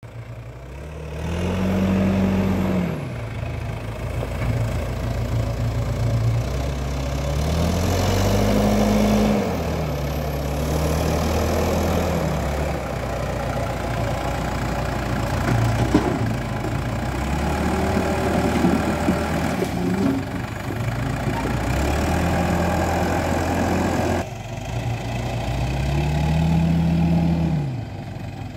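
Diesel engine of an old L&T Case backhoe loader running under load, revving up and dropping back several times as the loader works its bucket, with a tractor's diesel running alongside. Around the middle, dirt and stones tip from the bucket into a tractor trolley.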